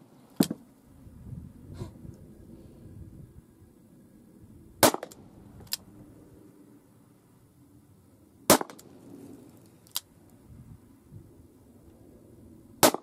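.44 Magnum revolver firing sabotted 55-grain .22-calibre bullets: four sharp shots about four seconds apart, each followed by a fainter click or crack.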